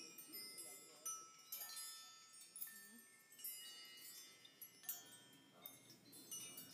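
Hanging strands of small rings and shapes in a kinetic installation clinking together like a wind chime: about half a dozen soft, light strikes, each leaving high tones that ring on briefly.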